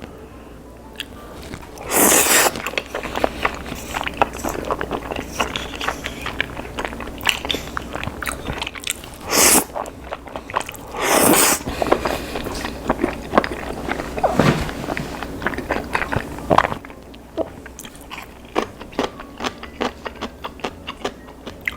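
Close-miked eating of crispy fried chicken: crunchy bites and chewing. Loud crunches come about two seconds in, then twice around nine to eleven seconds, and the chewing grows quieter near the end.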